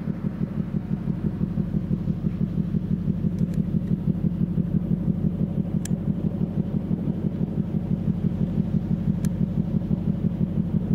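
Small car ferry's diesel engine running with a steady, rapid low throb as the ferry approaches.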